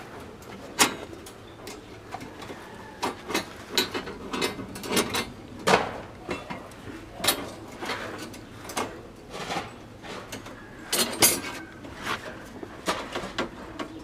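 Tie wire being twisted tight around steel rebar by hand, the rebar and wire clinking and ticking in irregular sharp clicks, loudest a little before the middle and again near the end.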